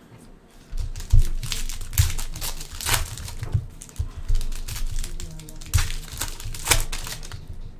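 Plastic wrappers of trading card packs crinkling and tearing as the packs are opened, an irregular run of crackles and rustles with several louder crackles.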